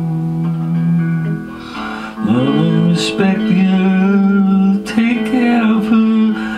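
Electric guitar playing a blues instrumental break: long held notes, with a note bent upward about two seconds in and sharply picked notes after.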